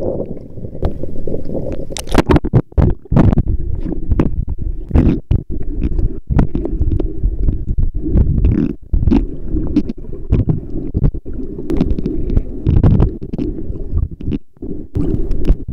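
Seawater sloshing and rushing against a camera held at and below the ocean surface. It makes a loud, low rumble broken again and again by sudden splashes, crackles and abrupt dropouts.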